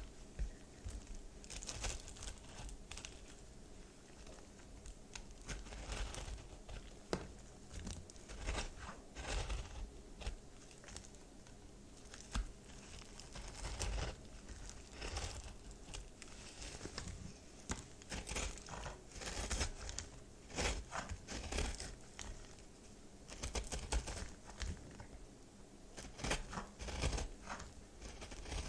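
Microwave-puffed baby soap crunching and crackling as it is cut, in a dense run of irregular crackles.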